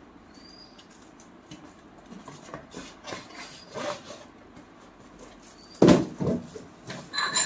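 Gift boxes and packaging being handled: cardboard rubbing and rustling, with a loud knock about six seconds in as something is set down on a ledge.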